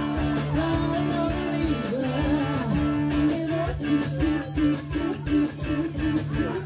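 Live band playing, with electric guitars and bass guitar over a steady beat.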